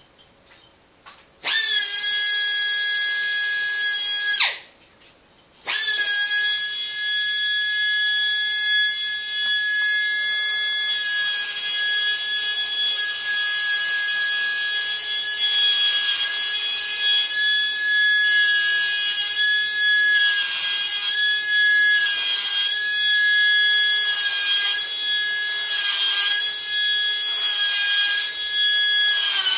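DR-737 pneumatic die grinder: a few light clicks, then it starts about a second and a half in with a high steady whine and air hiss. It stops for about a second, then runs again without a break. In the later part its whine dips slightly and roughens now and then as the bit is worked against a metal block.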